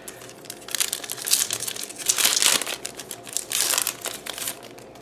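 Foil Yu-Gi-Oh! booster pack wrapper crinkling as it is torn open by hand, in a series of crackly bursts that are loudest about two seconds in.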